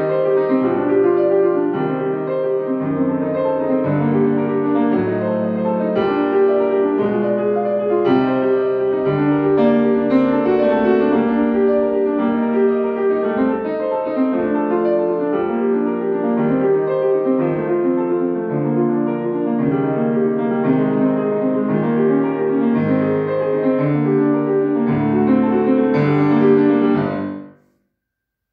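Grand piano played solo, a fast, continuous run of classical notes. The sound stops abruptly near the end.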